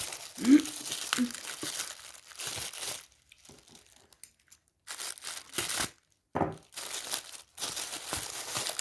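Small packaging bag being handled and opened by hand: irregular plastic crinkling and rustling, broken by two short pauses.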